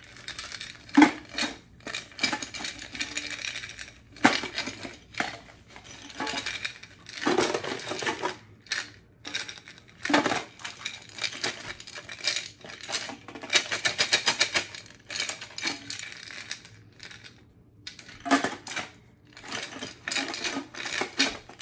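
Candies rattling and clattering inside a candy jar as it is shaken, in bursts of rapid clicks with short pauses between them.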